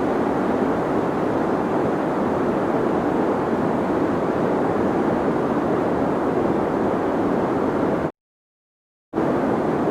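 Steady deep white noise, a low even hiss. It cuts out to complete silence for about a second near the end, then comes straight back.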